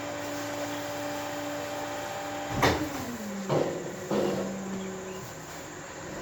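A steady machine hum, broken by three loud bangs about half a second to a second apart near the middle. The hum's pitch slides down after the first bang and stays lower afterwards.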